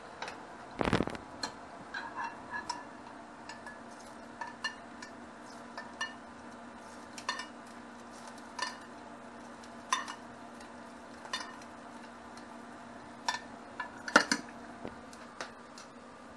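Metal spoon clinking and scraping in a frying pan as hot oil is scooped out again and again, about one clink every second and a half. There is a heavy knock about a second in and a quick clatter of metal near the end as the pan is handled, over a faint steady hum.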